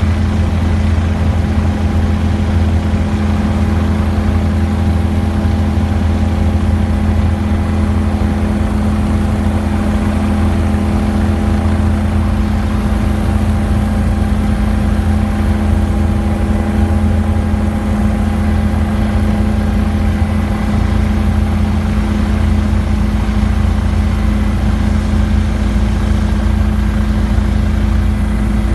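Helicopter engine and rotor running steadily: a constant low rumble with several held tones, unchanging in pitch and level.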